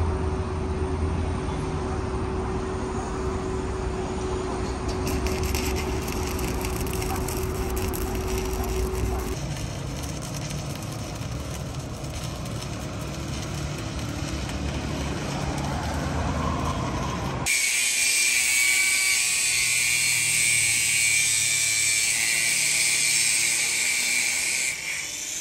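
Steady low rumble for about the first two-thirds, then an angle grinder cuts in suddenly with a high whining grind on welded sheet steel, running until just before the end.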